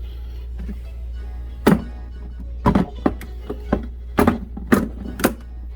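About seven sharp, irregularly spaced knocks and thuds of kitchen work on a countertop or cutting board, the loudest about two seconds in, over background music.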